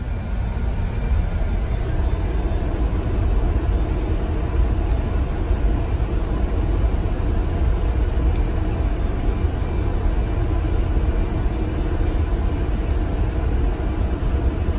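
Steady low rumble with a hiss of moving air: the background noise of an airliner cockpit with its systems powered, unchanging throughout.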